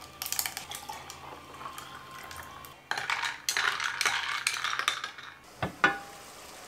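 Long metal spoon stirring ice cubes in a glass mason jar of a dark iced drink: a dense run of clinks and rattles in the middle, after lighter clinks of liquid being poured over the ice at the start. Two sharp taps follow near the end.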